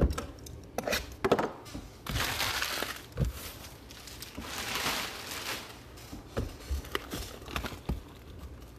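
Plastic packaging crinkling as it is handled and crumpled, in two longer stretches, among several sharp knocks and taps on the table.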